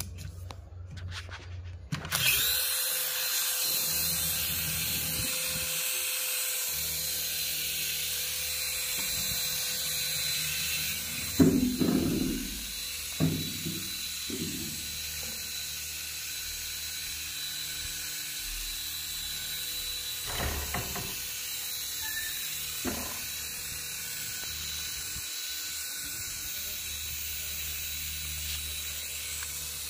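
Mini RC helicopter's small electric rotor motors spinning up and running at speed, a steady high whir with a steady whine, starting suddenly about two seconds in. A few short knocks break in around the middle.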